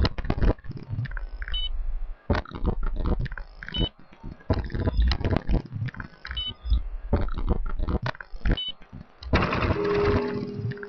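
Electronic sound-effect soundtrack of irregular clicks, low thumps and short high beeps. About nine seconds in, a burst of hiss comes in with a held tone under it.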